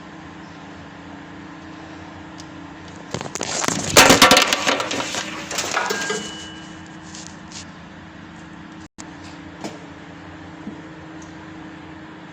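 Loud crackling and clattering for about three seconds, starting about three seconds in, from parts being handled during work on a washing machine's water level switch and hose, over a steady low hum.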